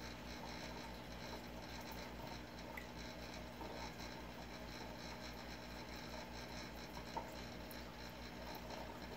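Steady hum and water noise of a reef aquarium's running equipment, with one small click about seven seconds in.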